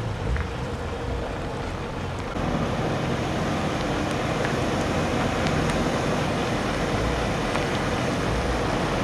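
Iveco heavy truck's engine running as it slowly hauls a loaded multi-axle low-loader trailer past, getting louder about two and a half seconds in.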